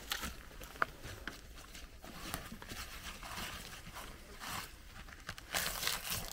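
Gloved hands scraping and clawing dry soil and dead plant litter away from a thick tree root: irregular scratching and rustling with a few sharp clicks, busier near the end.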